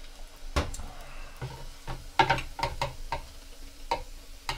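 Irregular clicks and clinks of kitchen utensils and dishes being handled, with a quick run of knocks about two seconds in.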